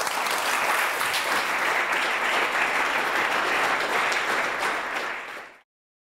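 Audience applauding steadily, dense clapping that fades slightly and then cuts off abruptly near the end.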